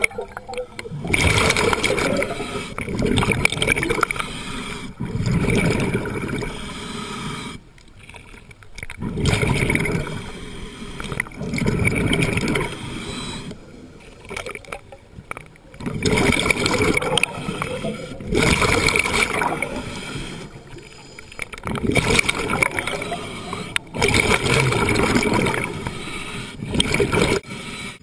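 Scuba diver breathing through a regulator underwater: long bursts of exhaled bubbles gurgling past every few seconds, with quieter breathing between them.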